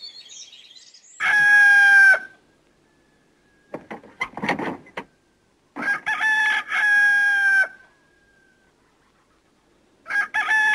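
Rooster crowing three times, the third crow starting near the end, with a few short calls in between.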